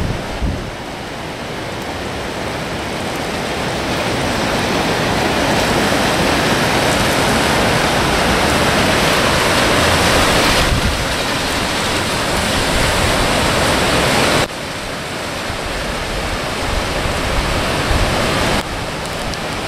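Heavy rain falling, a loud steady rushing hiss that drops abruptly in level about eleven and again about fourteen and a half seconds in.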